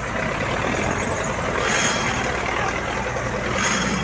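Diesel tractor engines running loud as the tractors are driven hard, with a steady low rumble and two louder surges, about two seconds in and near the end.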